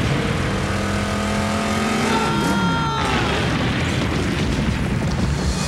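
Cartoon sound effect of a nitroglycerin explosion, a long, dense rumble, blending into a car engine running. Dramatic background music with falling lines plays over it.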